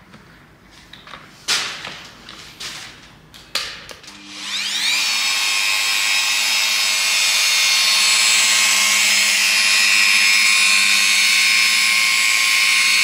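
A few knocks and clicks, then about four seconds in a handheld rotary polisher starts, its motor whine rising to speed. It then runs steadily with its foam pad on black car paint freshly sanded to 6000 grit, the pre-polish step.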